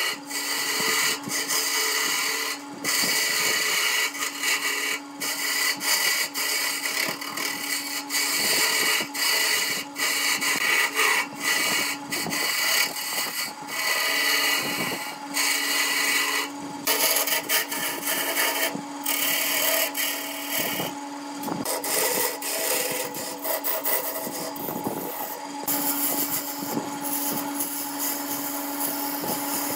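Wood lathe running with a steady hum while a hand-held turning tool cuts the spinning glued-up blank of coloured wood panels. The cutting makes a scraping hiss that breaks off for a moment every few seconds as the tool is eased off and set back.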